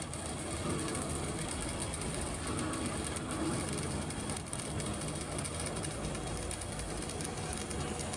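CO2 MIG welding arc crackling steadily while a vertical-up (3G) weld is run.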